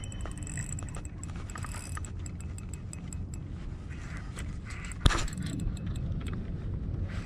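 Handling noise against a body-mounted camera while an angler plays a hooked fish on a spinning rod: rustling, with many small clicks and rattles over a steady low rumble, and one sharp knock about five seconds in.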